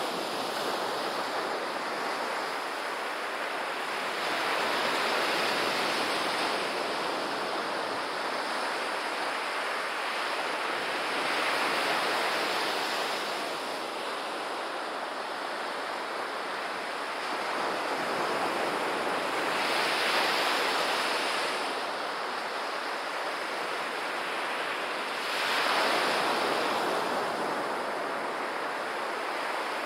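Surf on a sandy beach: small waves breaking and washing up the shore, the rush swelling and fading every several seconds, with the strongest surge near the end.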